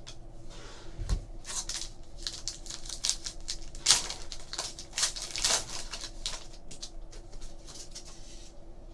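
Trading cards and card pack wrappers being handled: a run of short crinkles, rustles and card flicks, loudest about four seconds in, over a faint steady hum.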